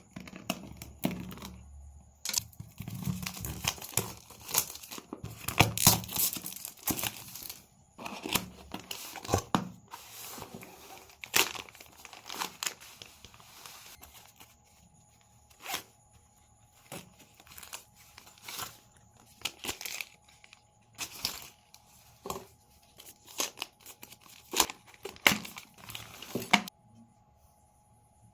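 Packaging being torn open and crinkled during an unboxing, in a long irregular run of sharp rustles and clicks that is busiest in the first half and stops near the end.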